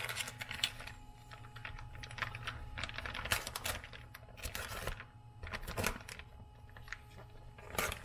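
A vacuum-sealed plastic bag being cut open and handled: irregular small clicks and plastic rustling over a steady low hum.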